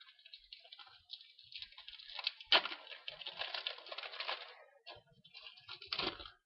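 Foil trading-card packet crinkling and crackling as it is opened and the cards are handled, with a sharp louder crackle about two and a half seconds in and another near the end.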